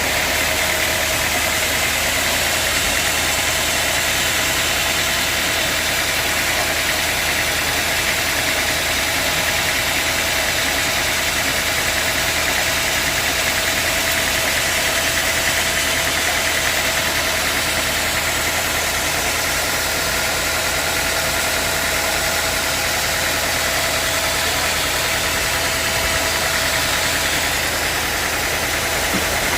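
Sawmill machinery running steadily: a continuous mechanical drone with a low hum and a few steady whining tones, unchanging throughout.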